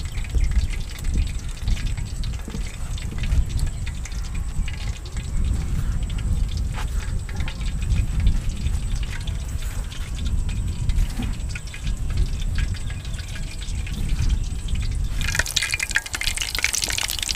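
A low, steady rumble with faint handling ticks while drumsticks are dipped in egg and pressed into breadcrumbs. About fifteen seconds in, hot oil starts sizzling as a breaded chicken drumstick is lowered into it for deep-frying.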